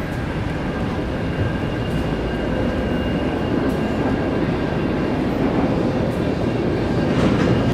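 Steady shipboard machinery and ventilation drone in a navy ship's below-deck passageway, with a faint whine held on a couple of pitches and a few light footsteps.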